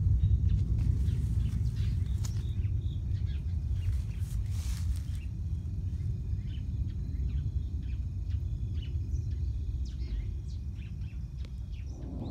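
Outdoor ambience dominated by a steady low rumble, with scattered short bird chirps and faint steady high tones over it, and a brief hiss about four and a half seconds in.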